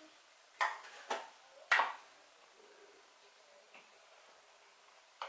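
Three light clicks of kitchenware, about half a second apart, and one more near the end.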